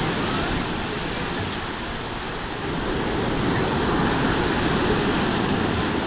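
Rough sea surf breaking and washing over a pebble beach, a steady rushing that eases about two seconds in and swells again after.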